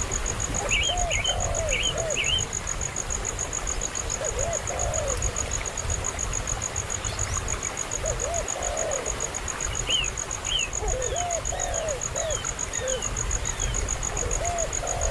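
Young bird calling in short groups of rising-and-falling calls, with higher thin chirps near the start and again in the second half, over a steady fast-pulsing insect trill.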